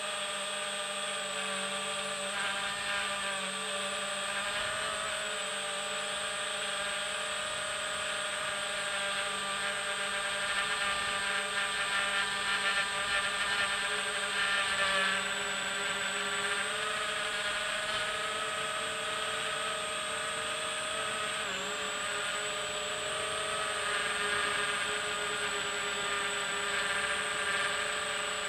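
Electric motors and propellers of a small FPV drone whining steadily in flight, heard from its onboard camera. The pitch drifts up and down a little with throttle, and it is a little louder around the middle.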